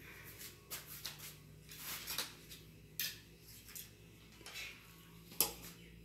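Cake server and knife scraping and clicking against a plastic cake stand and plate as a slice of glazed cake is lifted out and set down. It is a string of short, light scrapes, with one sharp click near the end the loudest.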